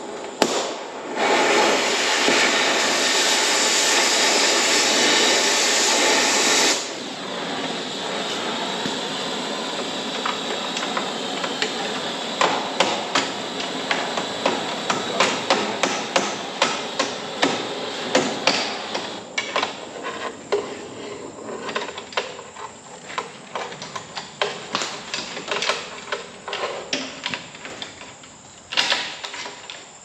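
A steady, loud rush of noise for about six seconds, then irregular metal knocks and hammer strikes on the forage harvester's corn head as a broken drive chain wedged between the gathering chains is worked free.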